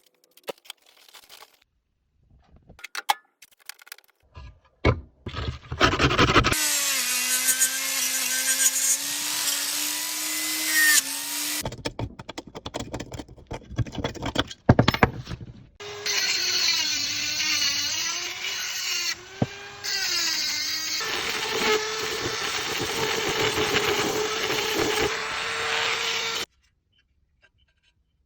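Small electric power tool working the steel of an SVT rifle magazine during restoration, its motor pitch sagging and recovering under load in two long runs. Short clicks and knocks of handling come before the first run.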